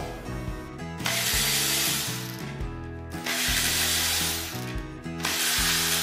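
Cordless electric ratchet running in three bursts of about a second and a half each, spinning the bolts of a two-piece brake disc, over background music.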